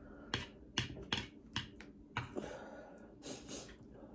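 Close-up eating sounds of a person eating black bean noodles: a quick run of sharp clicky mouth smacks and chews in the first two seconds, then a longer, softer stretch of noise.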